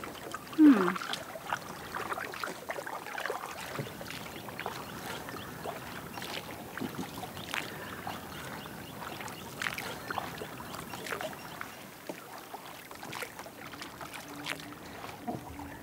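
Water lapping and splashing around a small boat, with scattered light splashes. A short falling sound comes about a second in, and a faint steady low tone comes in near the end.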